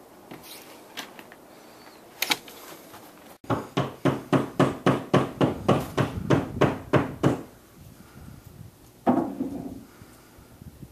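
Hammer blows in a quick, even run of about fifteen strikes, roughly four a second, lasting about four seconds. A few light clicks come before them, and a single louder knock follows about nine seconds in.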